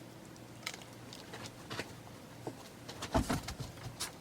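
Small clicks and rustles of medication packaging being handled while a pill is got out, with a louder knock and rattle a little after three seconds, as the pill sticks and is dropped.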